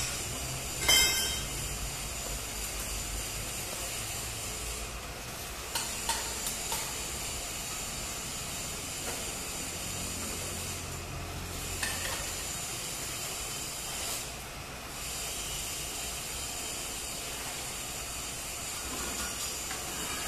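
Stick (shielded metal arc) welding on a vertical joint: a steady hiss from the arc, with a few sharp clicks about a second in and again around six seconds in.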